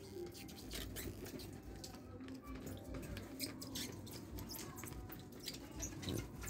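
Plastic scraper spreading thick, sticky yema candy mixture into plastic trays: soft irregular squishing and sticky smacks, with small scrapes and taps of the scraper on the tray.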